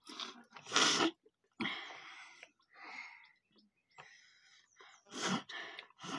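Close-up mealtime eating and drinking: a run of short, breathy, noisy bursts such as slurps, gulps and sharp breaths from people eating rice and drinking water. The loudest burst comes about a second in and another near the end.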